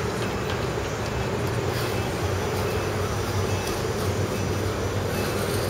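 Steady low rumble of road traffic, with no clear breaks or single events.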